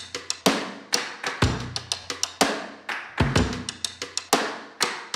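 Background music with a steady drum beat: bass drum and sharp percussion hits about twice a second, with lighter ticks between them and a low bass line.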